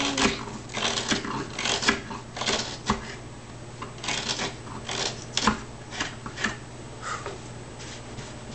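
Hand carving tool cutting into a wooden board in a series of short scraping strokes, about one or two a second, lifting curled shavings; the strokes stop about six and a half seconds in.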